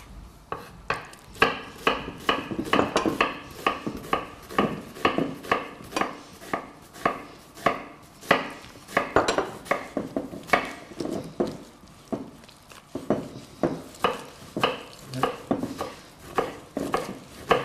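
Kitchen knife chopping an onion on a cutting board: a steady run of sharp knocks, about two to three a second, unevenly spaced.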